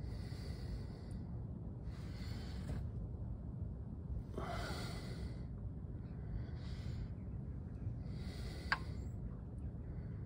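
A person breathing audibly close to the microphone, about one breath every two seconds, over a steady low rumble. A single sharp click comes near the end.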